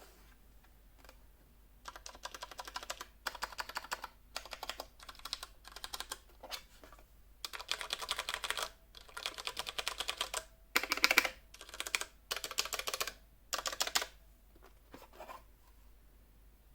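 Typing on a Ducky One 2 SF mechanical keyboard with brown switches: irregular bursts of rapid keystrokes separated by short pauses, starting about two seconds in and stopping shortly before the end.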